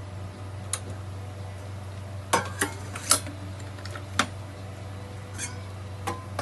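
Several sharp clinks of crockery and cutlery, like a spoon against a cup, over a steady low hum.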